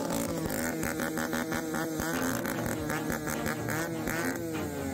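Several 50cc two-stroke youth motocross bikes racing, their engines buzzing at high revs. The pitch rises and falls again and again as the riders work the throttle through the turns.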